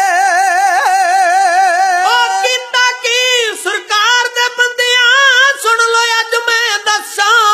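Music from a Punjabi song between sung verses: a high melodic lead line held with a wide vibrato for about two seconds, then moving in gliding, ornamented phrases.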